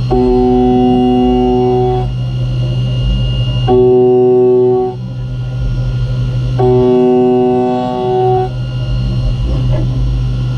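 Okuma M560-V CNC vertical mill's spindle hums steadily while an end mill cuts a 7075 aluminium puck. A steady pitched tone rings out three times, about two seconds each, as the cutter takes its passes.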